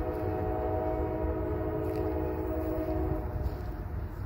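Diesel locomotive's multi-chime air horn sounding one long blast that stops about three seconds in, over a steady low rumble from the train.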